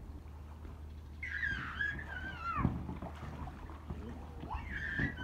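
A child squealing in play: two long, high-pitched, wavering squeals, the first sliding down in pitch at its end.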